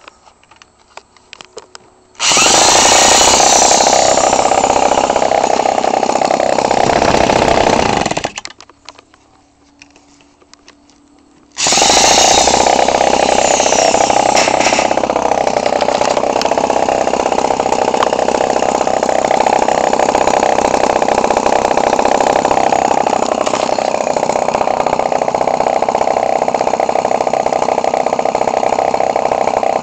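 Echo 20cc two-stroke string-trimmer engine, converted for an RC airplane, running loud because the side of its muffler is off and left open. It fires up about two seconds in and runs for about six seconds. Then it dies away with a falling pitch, starts again a few seconds later and runs steadily to the end.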